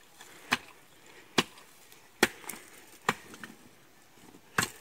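A Garhwali kutla, a short-handled iron hoe, striking dry, hard-baked soil in steady digging blows: five sharp strikes, a little under one a second.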